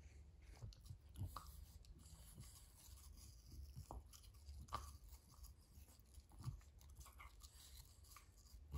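French bulldog mouthing and chewing a piece of food taken from a person's fingers: faint, scattered wet smacks and small clicks.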